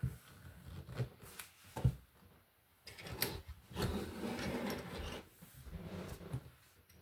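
Plastic Lego pieces being handled: a few sharp clicks, then a longer rattling, rustling stretch from about three seconds in, as of pieces being sorted through.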